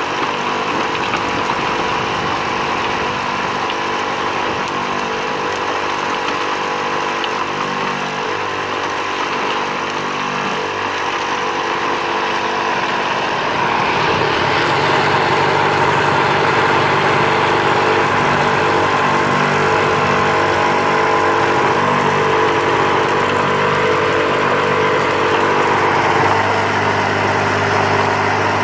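Vibrating motor of a homemade compost sifter running steadily, shaking the sifter's screen as compost is poured through. The hum gets louder about halfway in.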